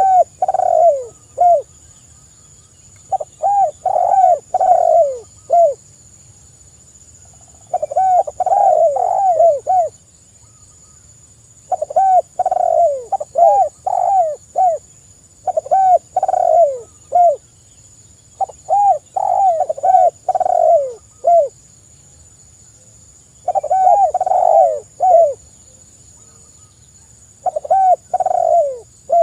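Spotted dove (tekukur) cooing: repeated phrases of four or five quick coos, each coo falling in pitch, a new phrase about every four seconds.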